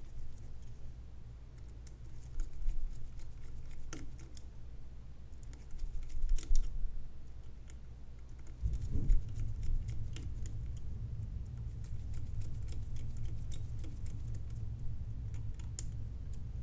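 Small screwdriver driving the four screws that hold a BNC connector onto a metal QCM cell body: scattered light clicks and ticks of the tool and screws, over a low steady hum that grows a little louder about nine seconds in.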